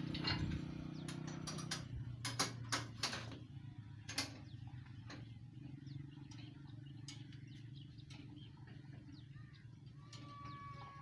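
A platform weighing scale clicking and knocking as someone steps onto it and it settles, about seven sharp clicks over the first five seconds, over a steady low hum.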